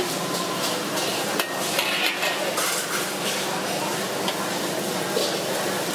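Stir-frying in a wok: pork slices, greens and an egg sizzling in hot oil, with the metal wok spatula clanking and scraping against the pan several times.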